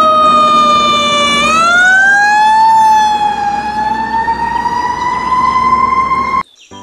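Ladder fire truck's siren wailing in a slow sweep: the pitch sinks slightly, rises about a second and a half in, dips, then climbs slowly, with the truck's engine rumbling beneath. The sound cuts off suddenly near the end.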